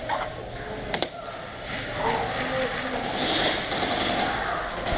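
Airsoft gunfire: two sharp pops in quick succession about a second in. A short hissing rustle follows a little after the middle.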